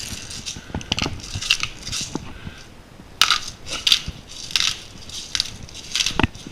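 Salt grinder being twisted in repeated short strokes, crunching Himalayan pink salt crystals.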